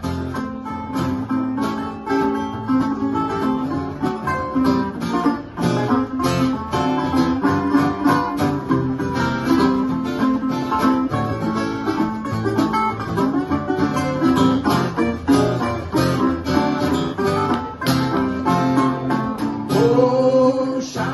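Instrumental break of a blues song played live on two guitars, a metal-bodied resonator guitar and a steel-string acoustic guitar, picked together at a steady beat.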